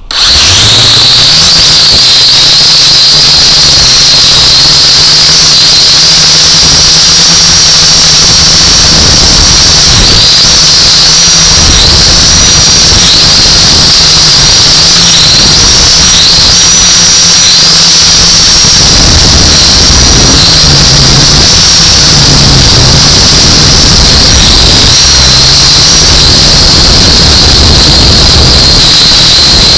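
Small quadcopter drone's electric motors and propellers whining very loudly and close, heard from the drone itself. The sound cuts in at once at the start, and the high whine wavers a little in pitch as the motors change speed in flight, over a low hum.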